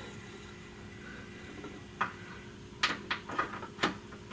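Metal clicks of a ratchet and wobble-socket extension being fitted onto a 12 mm bolt: one click about two seconds in, then a quick run of sharp clicks near the end, over a faint steady hum.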